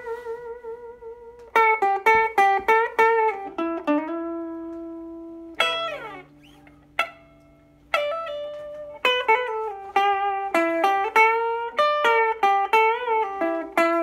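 Custom oil can electric guitar with a Telecaster-style pickup setup, played through a 14-watt 1950s tube suitcase amp: blues licks with bent, wavering notes, a quick slide down about halfway through, and long sustaining notes.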